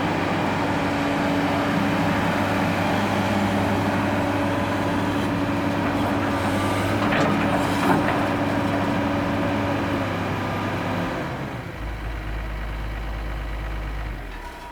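Diesel engine of a Komatsu PC228 excavator running steadily, with a brief clank about eight seconds in. Its speed drops to a lower idle about eleven seconds in, and the engine cuts off near the end.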